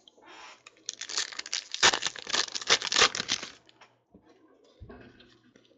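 Silver foil trading-card pack being torn open and crinkled: a dense burst of crackling and tearing lasting about two and a half seconds, then faint rustling as the cards are handled.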